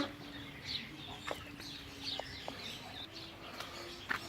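Chicks peeping and chirping in a flurry of short high calls, with a couple of sharp clicks and a faint steady hum underneath.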